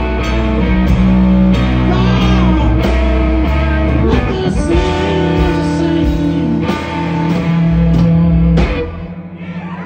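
Live blues band playing: a thinline electric guitar carries the lead with sustained notes and string bends over bass and drums. The band drops back a little near the end.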